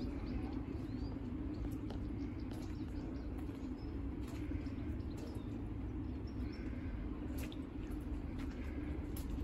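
Garden ambience: a steady low hum and rumble, with small birds giving short chirps now and then and occasional drips of water.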